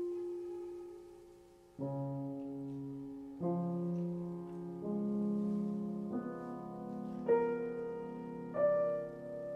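Steingraeber & Söhne grand piano playing a slow series of struck chords, about one every one and a half seconds, each left ringing so the tones overlap and build up. Before the first chord, about two seconds in, a single held tone fades away.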